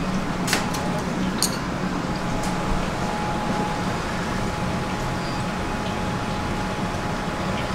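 Steady mechanical hum of a restaurant kitchen's ventilation, with a low drone and a faint high whine, and a few light clicks in the first second and a half.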